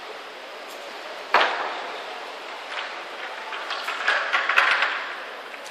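Echoing background noise of a large indoor climbing hall, with one sharp knock about a second in and a quick run of clattering knocks and clicks around four seconds in.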